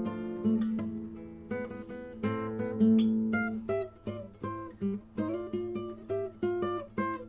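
Acoustic guitar playing an instrumental passage of plucked and strummed chords and melody notes.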